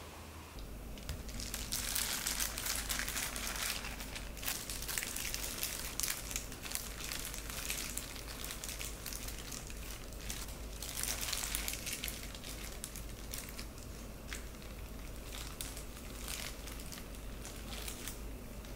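Disposable plastic glove crinkling and rustling as a hand handles and lays out slices of food on a wooden board, with small clicks and taps throughout. A steady low hum runs underneath.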